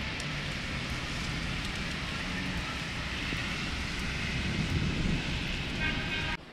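Heavy rain falling in a steady hiss, with a low rumble of wind on the microphone and street traffic below; it cuts off suddenly near the end.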